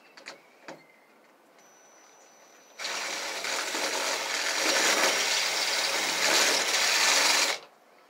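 Cordless drill running hard for about five seconds against a stuck self-tapping screw in a metal door hinge, starting about three seconds in and getting a little louder before it stops, after a couple of light clicks of the bit on the screw.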